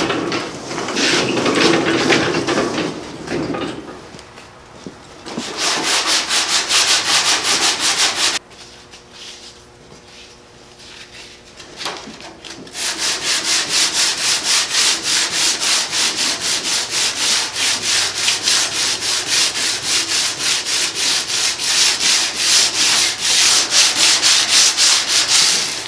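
Sandpaper wrapped around a paint paddle being rubbed by hand over the edge of a painted car fender. After some handling of the fender at the start comes a short spell of sanding and a pause, then steady back-and-forth strokes at about four a second.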